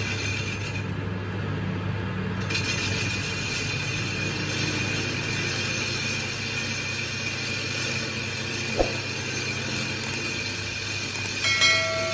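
Wheel lathe running with an alloy wheel spinning against the cutting tool: a steady low hum and a high whine from the cut, which drops out briefly about a second in. A single click near the middle and a short bell-like chime near the end.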